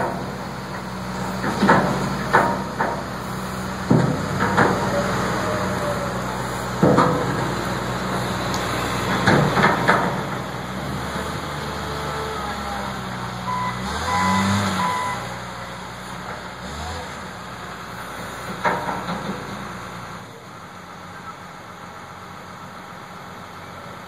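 Wheel loader's diesel engine running steadily, with a series of sharp metallic clanks and bangs as it works. Just past halfway, a few short reversing beeps sound.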